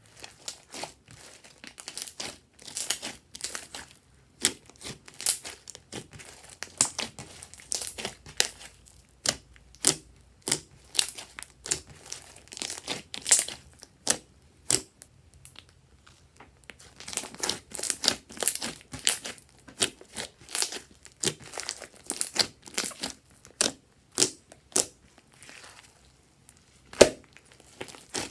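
Slime being squeezed and stretched by hand, giving an irregular run of sharp crackling clicks and crinkles as air pockets pop.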